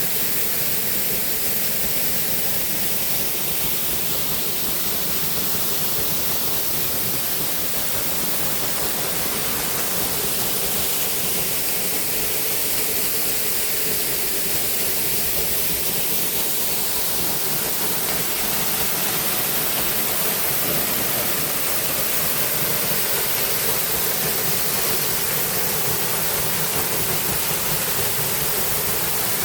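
Rushing water from a river and waterfall: a steady, even hiss that does not change.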